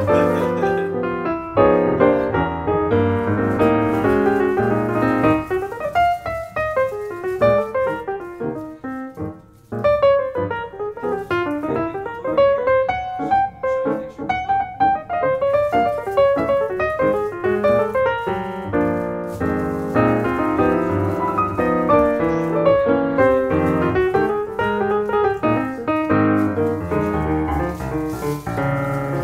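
Piano music, a run of notes and chords with a brief pause about a third of the way through.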